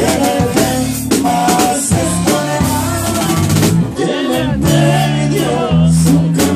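Live norteño band playing an instrumental passage: a button accordion melody over bass notes and a drum kit keeping a steady beat.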